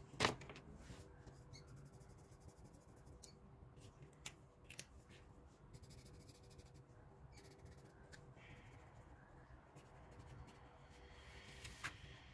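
Faint scratching of marker pens drawing on paper, with a few sharp clicks and taps; the loudest click comes just after the start.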